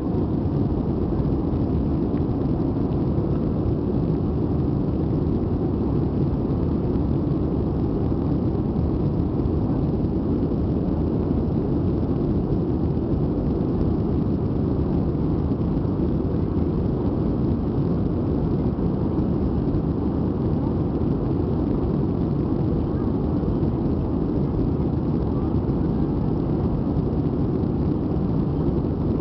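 Airbus A320 cabin noise in the climb after takeoff: a steady low rumble of the engines and rushing air, heard inside the cabin beside the wing.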